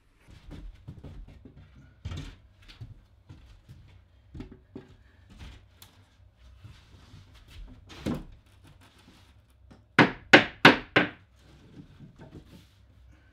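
Scattered knocks and thuds of OSB boards and wood being handled, then four loud, sharp knocks in quick succession about ten seconds in.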